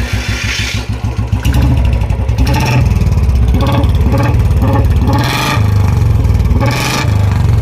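Royal Enfield Bullet 350's single-cylinder engine running through an Indori aftermarket silencer. It idles with an even beat of firing pulses, then from about a second and a half in the throttle is blipped several times, the revs rising and falling.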